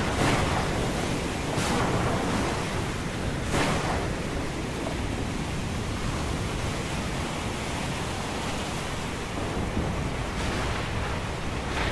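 Stormy open sea: a steady rush of waves and wind, with a few louder surges in the first four seconds and again near the end.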